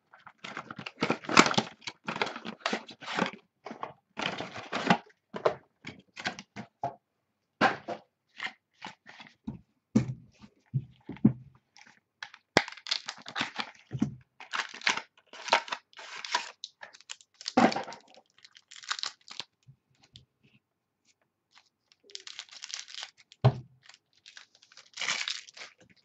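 Plastic wrap and card packaging being torn open and crinkled by hand, in irregular bursts with short pauses, as a sealed box of trading cards is opened. A few soft knocks of the box being handled.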